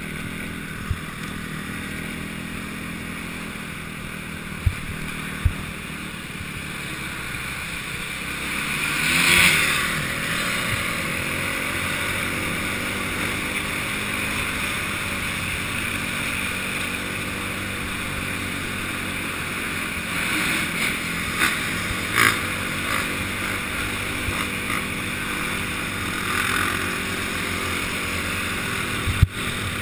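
Enduro motorcycle engine running steadily under way, heard from a camera mounted on the bike, swelling briefly about nine seconds in. A few sharp knocks break through now and then.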